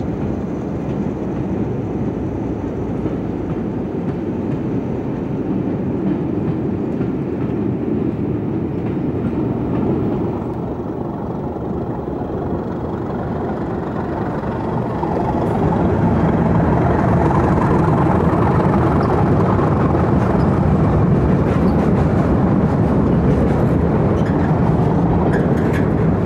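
Diesel freight locomotive running with its train, a steady engine rumble that gets louder about fifteen seconds in.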